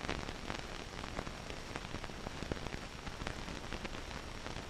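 Crackle and hiss of an old film soundtrack: an even hiss scattered with irregular small clicks, and a faint steady high whine.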